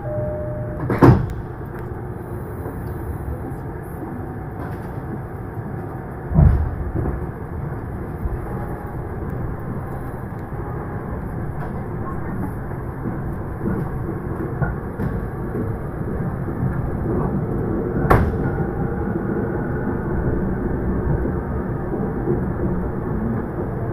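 Inside a Shonan-Shinjuku Line commuter train pulling out of the station: two heavy thuds about a second and about six seconds in, then the steady running rumble of the carriage as it gathers speed, with a sharp click near the end.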